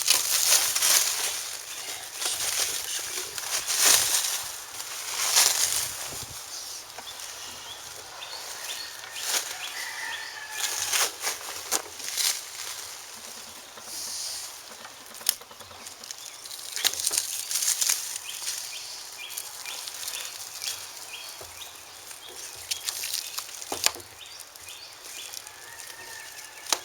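Plastic wrapping rustling and crinkling in irregular bursts as it is pulled and handled off a fuel tank, loudest in the first few seconds, with a few sharp crackles later on.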